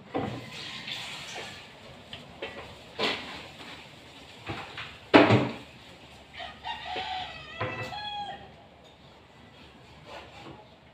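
A rooster crows once, a pitched call lasting a second or two, about six and a half seconds in. Several sharp knocks and thumps come before it, the loudest about five seconds in.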